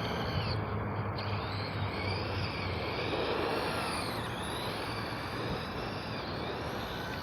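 Electric RC car running, its motor whine rising and falling in pitch over a dense rush of noise.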